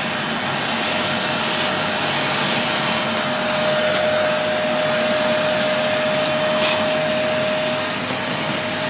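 Parkside PNTS 1500 C4 wet-and-dry workshop vacuum running steadily: rushing suction air with a constant whine from the motor.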